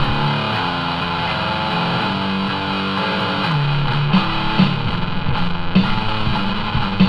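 Distorted electric guitar playing a riff of held low notes, with sharp percussive hits joining in about four seconds in.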